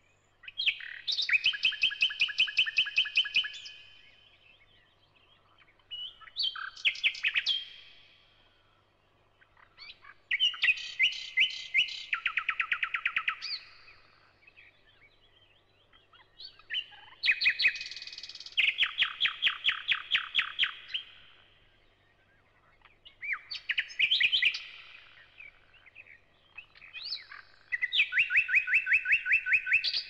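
Thrush nightingale (Luscinia luscinia) singing: six phrases of fast repeated whistles and clicks, each two to four seconds long, with pauses of about two seconds between them.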